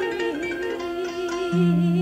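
Sundanese tembang Sunda Cianjuran music: kacapi zither notes plucked under a sliding, wavering melody line, with a strong low kacapi note ringing out about three-quarters of the way in.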